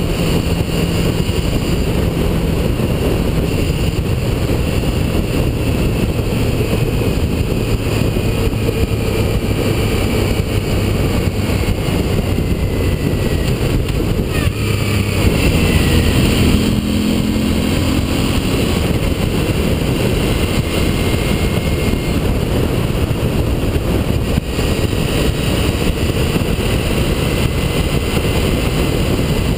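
Motorcycle riding at road speed, heard from a fairing-mounted camera: a steady engine drone under heavy wind buffeting on the microphone. The engine picks up briefly about halfway through.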